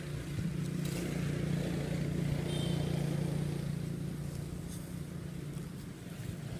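A motor vehicle engine droning steadily in the background, swelling to its loudest about two seconds in and easing off toward the end, as if passing by. A brief high chirp sounds near the middle.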